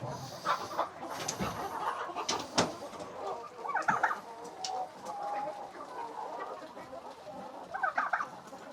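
Chickens clucking, with two louder bursts of clucking about four seconds in and again near the end, among a few sharp knocks and clicks in the first few seconds.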